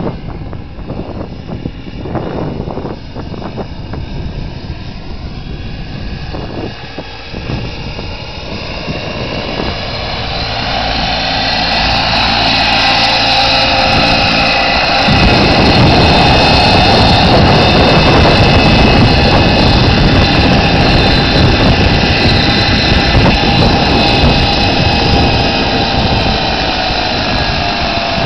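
Wren turbine engine of a radio-controlled model helicopter whining steadily together with rotor noise. It is fainter at first while the helicopter is high up, then grows loud over a few seconds about halfway through as it comes down low and lands close by, and keeps running loudly on the ground.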